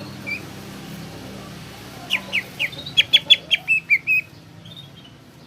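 Green leafbird (cucak ijo) singing a rapid run of about ten short, falling whistled notes, closer together in the second half, with one lone note just after the start. A low steady hum runs underneath.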